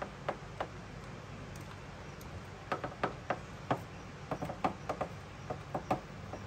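Irregular light clicks and taps of hand tools and small metal parts being handled while fitting a small quad's carburetor. They come sparsely at first and grow quicker and more frequent from about halfway through, over a steady low hum.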